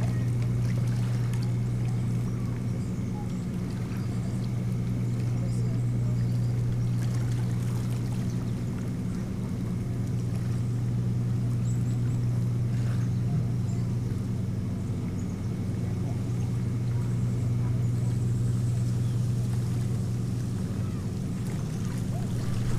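Steady low mechanical hum.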